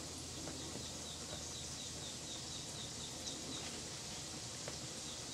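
A quick run of faint, high chirps, about three a second, that fades out after a few seconds, over a steady hiss.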